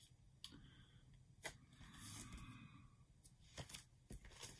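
Near silence, with faint rustles and a few light taps of cardboard LP sleeves being handled.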